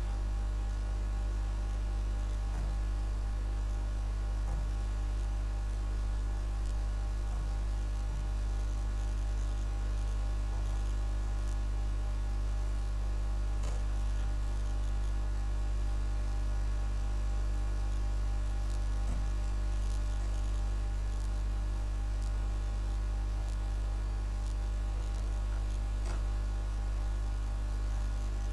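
Steady low electrical mains hum with many higher overtones, unchanging throughout, with a few faint clicks now and then.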